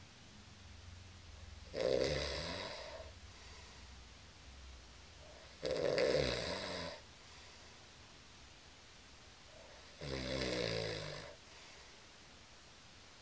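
A sleeping person snoring: three loud snores about four seconds apart, each lasting about a second and a half.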